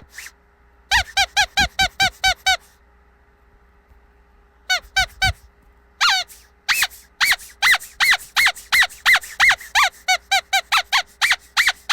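Squeaky dog toy squeezed over and over, giving short pitched squeaks in quick runs: a burst of about seven, a pause of about two seconds, a few more, then a long run of rapid squeaks.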